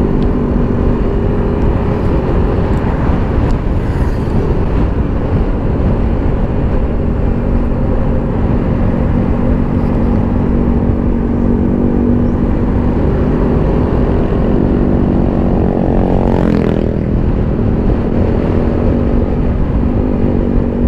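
Motorcycle engine running at steady riding speed, with road and wind rumble. About sixteen and a half seconds in, the engine note sweeps up sharply once, then settles back to a steady note.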